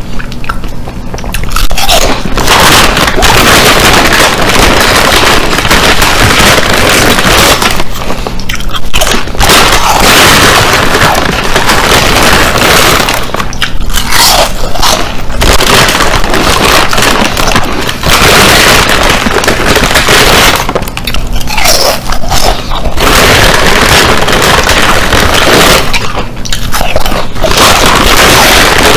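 Very loud, close-up crunching of chips being chewed, in long runs broken by short lulls about every six seconds, with the crinkle of a plastic chip bag as a hand reaches in.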